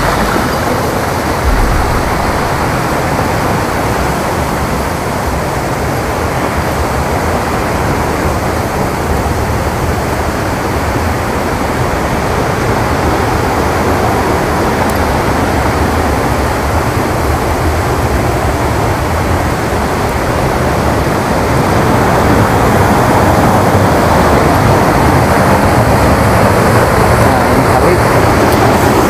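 Steady rushing roar of a river's flowing water, growing louder about three-quarters of the way through.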